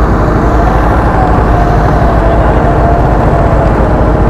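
Heavy diesel construction machinery running steadily with a deep rumble and a wavering whine, as the ground is bored out for a column foundation.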